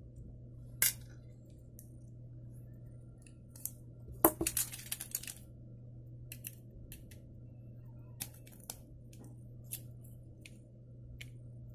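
Sharp little metal clicks and taps from handling an Ontario Rat-1 folding knife and a precision screwdriver during disassembly, scattered single clicks with a quick run of them about four seconds in.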